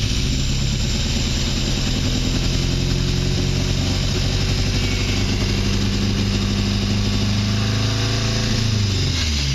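1959 Triumph TR3A's four-cylinder engine on twin SU carburettors, running steadily on its first start after 39 years, with the revs dropping near the end. It runs with the timing and carbs not yet set up.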